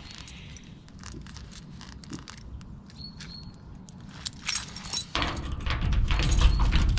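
A bunch of keys jangling and clicking while the right key for a garage lock is sought and tried. About five seconds in, a much louder low rumble with rattling starts.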